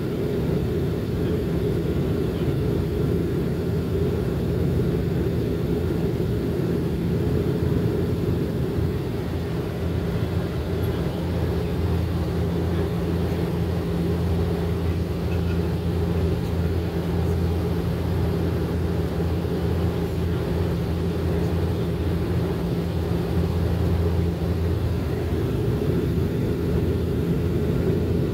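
Steady drone of a turboprop airliner's engines and propellers heard from inside the cabin: a deep hum with a few steady low tones, the lowest growing a little stronger midway.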